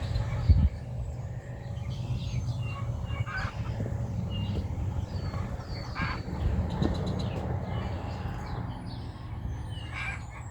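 A chicken clucking now and then, with small birds chirping over a steady low hum. A single thump about half a second in.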